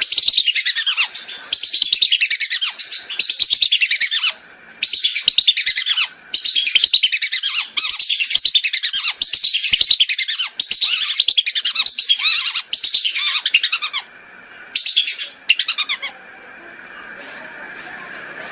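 Whistling ducks calling: loud, shrill whistled notes, each falling in pitch, repeated rapidly in overlapping runs with a few short breaks, stopping a couple of seconds before the end.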